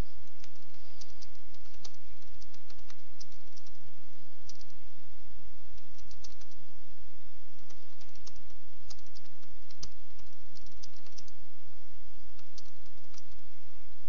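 Typing on a computer keyboard: irregular runs of key clicks with short pauses, over a steady low hum.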